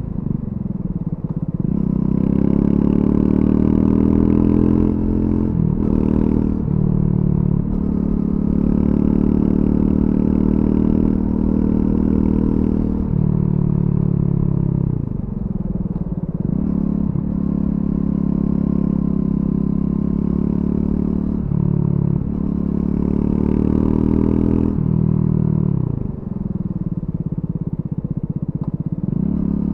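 Triumph Scrambler 400 X's single-cylinder engine through its stock exhaust, ridden hard: it revs up through the gears again and again, with a brief dip at each gear change or roll-off of the throttle before the pitch climbs once more.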